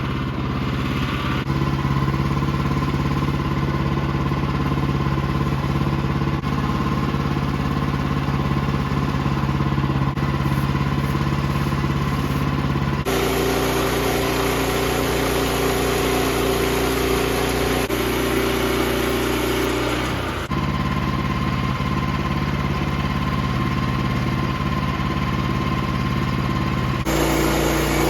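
Small gasoline engine running steadily, heard in several stretches that change suddenly at about 13, 20 and 27 seconds, each with a slightly different pitch.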